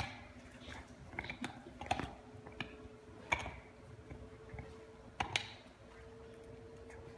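Light clicks and taps at irregular spacing as a blanket is tucked and pulled over a dog on a bed, with dogs shifting around it.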